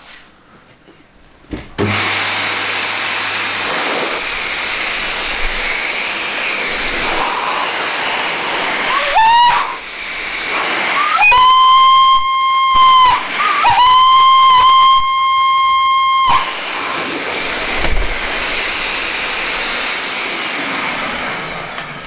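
Electric pet/motorcycle dryer blower starting up about two seconds in on its high-temperature setting, its air rushing steadily. Fed into a brass replica North Eastern Railway bell-type locomotive whistle, the air makes the whistle give a brief rising wail and then sound one steady note twice, each time for about two seconds with a short break between. The blower then runs on alone and drops in level near the end.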